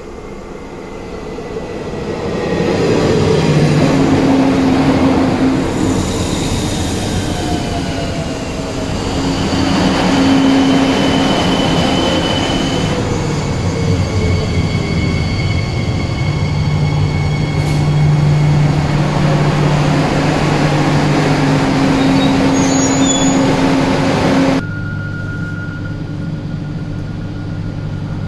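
A Regio 2N double-deck electric multiple unit runs into the platform, getting louder as it nears, with traction-motor whine and tones that slowly fall in pitch as it slows. It comes to a halt about 25 seconds in, when the noise drops suddenly to the steady hum and a thin high tone of the stationary train's equipment.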